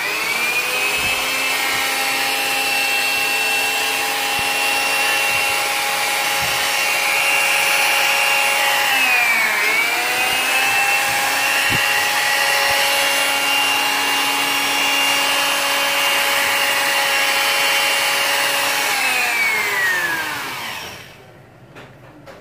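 Freshly restored corded electric drill running with no load: the motor spins up to a steady whine at once, dips in speed briefly and recovers about nine seconds in, then is switched off and winds down about twenty seconds in.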